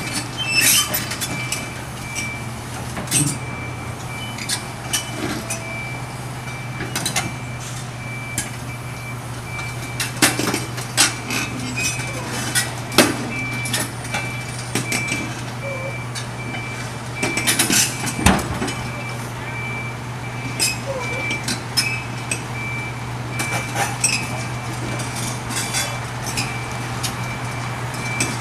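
Kobelco hydraulic excavator's diesel engine running steadily as its steel crawler tracks clank and knock over the rails, with irregular sharp metal bangs and one heavier bang about two-thirds of the way through. A thin repeating ding from the grade-crossing bell sounds throughout.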